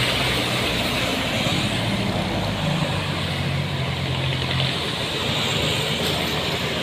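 Diesel engine of a coach bus running under load as it climbs a steep hill: a steady low engine note that shifts slightly in pitch a few times, with road noise.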